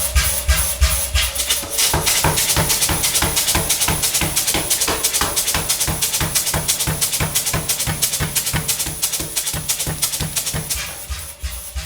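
Restored Plimers pneumatic power hammer running, its ram cycling in a rapid, even rhythm of blows that quickens about two seconds in and gets quieter near the end.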